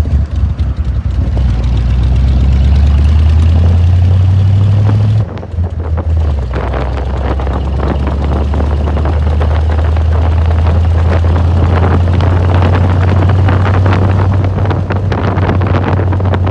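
1949 Allard's engine pulling under way, its low note rising over the first few seconds. About five seconds in it dips briefly at a gear change, then it runs steadily again with wind and road noise.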